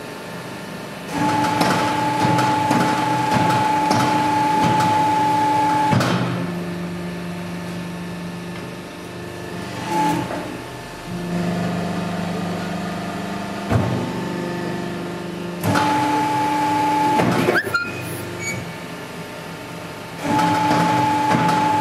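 Hydraulic shisha charcoal briquette press running through its pressing cycles: a steady machine whine that turns loud three times for several seconds each, with a lower hum between, and a few sharp clunks as the ram and punches change direction.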